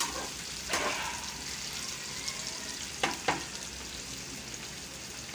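Sliced bitter gourd sizzling steadily as it fries in hot ghee in a metal pan. A metal slotted spoon stirring it knocks against the pan a few times: once about a second in and twice around three seconds in.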